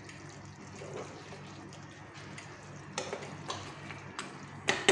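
A metal spoon stirring thick beef-bone sauce in a frying pan, with a few light clinks against the pan in the second half, the loudest near the end.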